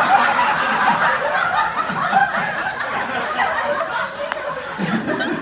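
A crowd of people laughing together, many voices at once, lasting several seconds.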